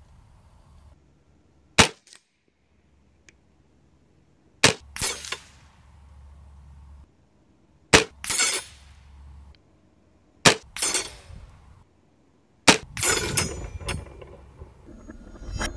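FX Monsoon regulated semi-auto PCP air rifle firing five shots about three seconds apart, each sharp crack followed a moment later by the clang and clatter of the .22 pellet hitting steel knockdown targets. The last hit rings and clatters longest.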